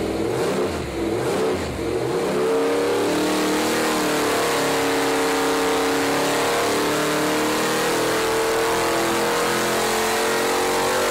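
Chevrolet small-block V8 crate engine running on an engine dyno, revving up about two seconds in and then held at a steady speed. This is a dyno run during ignition timing tests.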